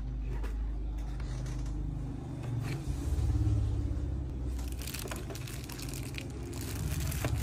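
A cardboard phone box being handled and opened, with scuffs and scrapes, then a plastic wrapper crinkling about five seconds in as the sealed phone is picked up, over a steady low rumble.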